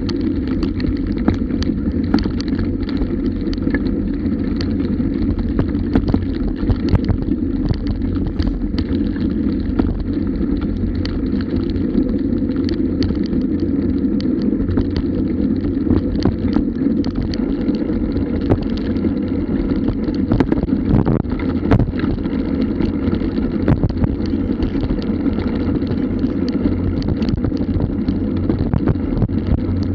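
Mountain bike rolling fast over a bumpy grass-and-dirt track, heard through a bike-mounted action camera: a steady low rumble of tyres and wind with frequent small rattles and knocks as the bike goes over bumps.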